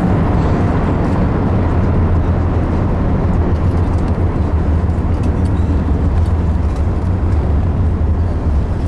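Steady low rumble inside the cabin of an Airbus A380 rolling on the ground after landing: engine and airframe noise at an even level.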